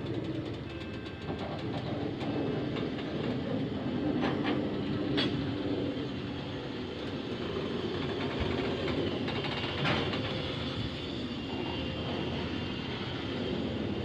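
Train of rail tank wagons rolling past close by: a steady rumble of wheels on the rails, with a few sharp clacks over rail joints, the loudest about ten seconds in.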